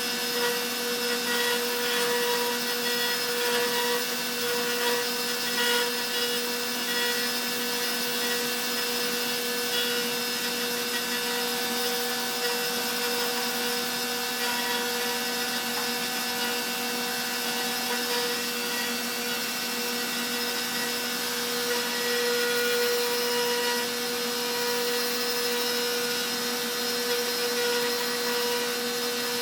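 Stepcraft M1000 CNC router's spindle running steadily with a steady whine while its V-bit carves into wood, with a rough cutting hiss and the hum of the machine's drive motors.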